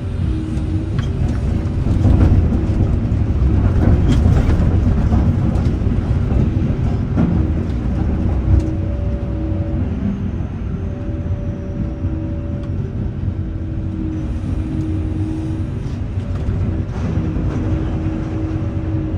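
Jonsson 1208 mobile jaw crusher working rock fed by a Volvo EC530 excavator: a steady diesel drone with a held tone, with rocks knocking and clattering through the crusher, heaviest from about two to eight seconds in.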